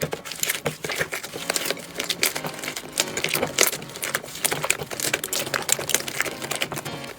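Slime being squeezed and poked, giving a dense run of irregular crackling clicks and pops.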